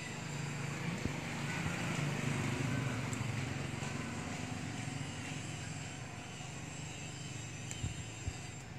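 A vehicle engine running steadily with a low hum, swelling for the first few seconds and then slowly fading, as if passing by.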